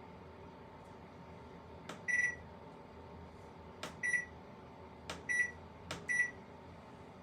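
Panasonic NA-LX128B drum washer-dryer in tub-drying mode, running with a steady hum and giving four short spurts of water sound, each a click followed by a brief sucking hiss, a second or two apart. A service technician judged it normal: water being sprayed onto the heat-exchanger fins as they reach working temperature.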